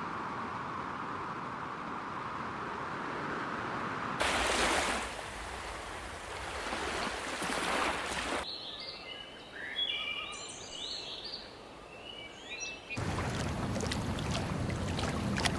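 Outdoor ambience in several abruptly cut segments: a steady rushing noise, with short chirping calls in the middle stretch.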